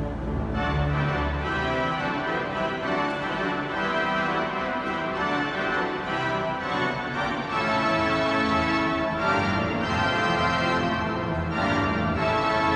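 Wanamaker Organ, a huge pipe organ, playing a fanfare in loud sustained full chords that change every second or so. Deep bass notes sound at the start, drop away about a second in, and come back, louder, a little past halfway.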